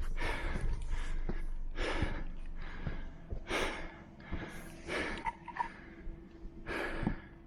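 A person breathing hard: about five heavy, rushing breaths, roughly one every second and a half, over a low steady hum.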